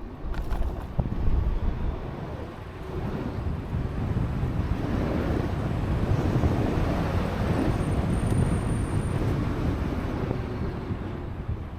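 Wind buffeting the microphone of a rider on a moving electric scooter: a steady, low rumbling rush that swells after about two seconds. A few sharp knocks come in the first second.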